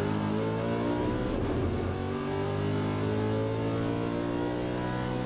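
Maserati GranTurismo race car's V8 engine heard from inside the cockpit under acceleration, its pitch climbing steadily through the gear.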